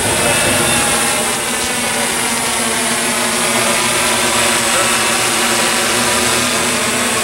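Tarot T960 hexacopter's six electric motors spinning 18-inch propellers, a loud, steady hum of many layered tones whose pitch wavers slightly.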